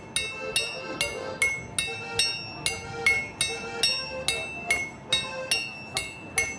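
Hammers striking steel anvils in a steady rhythm, about two strikes a second. Each strike leaves a bright, ringing clang, and two anvils ring at different pitches. A dance tune plays underneath.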